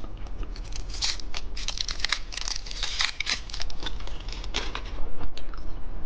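Plastic candy packaging crinkling and crackling as it is handled, a dense run of quick crackles that thins out near the end.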